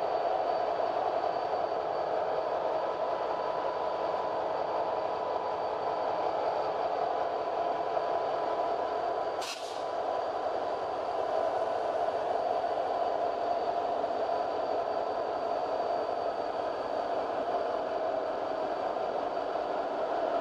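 Passenger train rolling steadily along the track, a constant running noise with a few steady tones over it. A short, sharp high sound cuts in once about halfway through.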